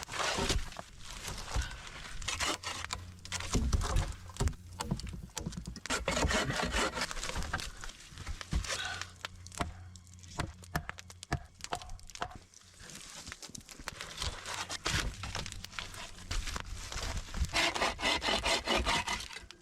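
Rustling, scraping and knocking of branches and wood being handled, with many irregular short knocks and scrapes, as a thatched shelter wall is built up.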